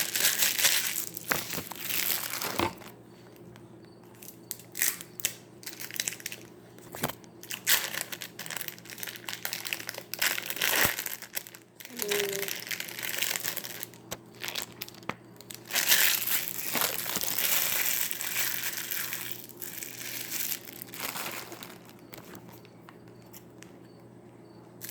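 Plastic wrappers on individually wrapped cheese slices crinkling as they are peeled off, in irregular bursts with quieter gaps and a few sharp clicks.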